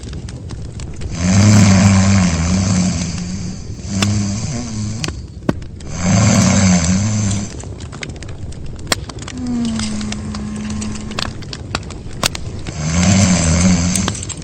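Loud snoring: three long snores about five seconds apart, each wavering in pitch, with a shorter snore and a steady whistling breath between them.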